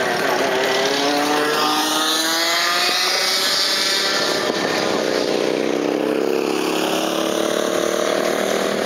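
Go-kart engines running hard as karts pass on the track, the engine note climbing and falling as they pass.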